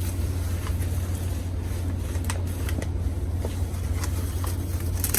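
Rustling and crinkling of packing material as a plant shipment is unpacked by hand, with scattered sharp clicks, over a steady low hum.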